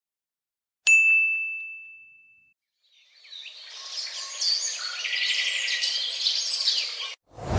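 A single high ding with one clear tone that rings and fades over about a second and a half. Then, from about three seconds in, birds chirping over a steady hiss, which cuts off abruptly near the end.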